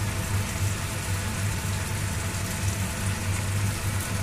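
Pork, onion and tomato sizzling steadily in oil in a frying pan over a gas burner, with a constant low hum underneath.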